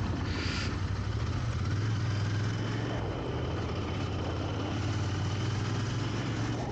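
Royal Enfield motorcycle engine running steadily at low speed in town traffic: a steady low hum with road and wind noise over it.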